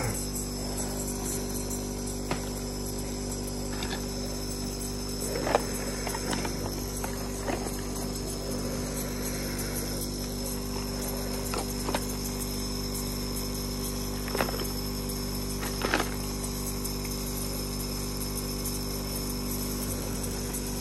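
Nebulizer air compressor running with a steady hum, with a few short knocks and clicks scattered through.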